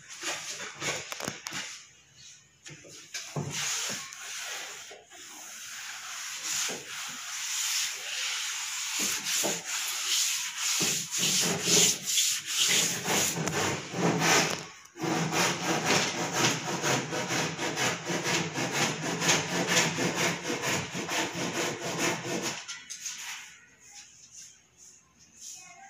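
Wood being worked with a tool: a continuous rasping, rubbing noise, with a steady tone running through it in the middle, that stops abruptly about 22 seconds in.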